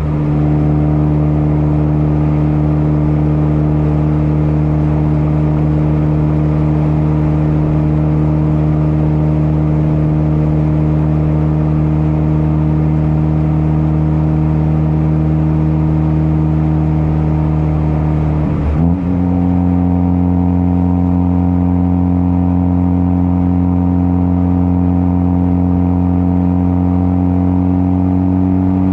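Turbocharged Ford Focus ST with a catless downpipe and a muffler-deleted catback exhaust, holding a steady engine note at constant revs. About 19 seconds in the note dips briefly, then settles at a slightly higher steady pitch.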